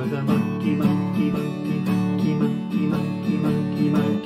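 Guitar strummed in a steady, even rhythm.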